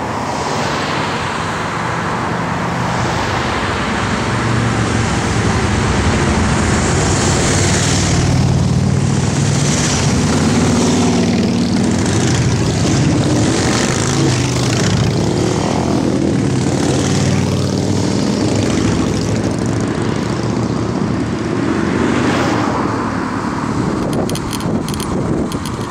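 A procession of motorcycles, many of them cruisers, riding past one after another; the engine sound swells and fades as each bike goes by.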